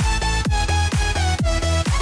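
Electronic dance music with a steady beat of about two kicks a second under held synth notes.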